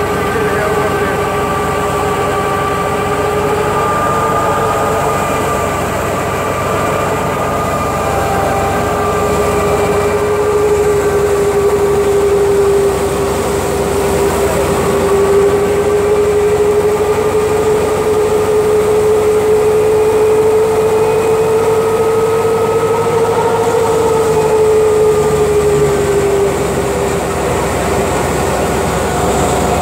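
Tractor-driven wheat thresher running while threshing: a loud, steady mechanical drone with a whine that drifts slightly in pitch.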